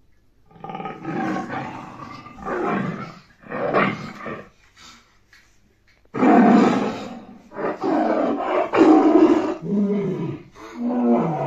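A child's voice roaring and growling in imitation of a tiger: a string of drawn-out roars about a second each, louder from about six seconds in.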